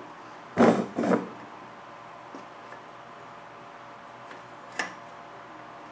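Insulated door of an electric heat-treating oven swung shut: two loud knocks about half a second apart as it closes against the oven body, then a single sharp click near the end as it is latched.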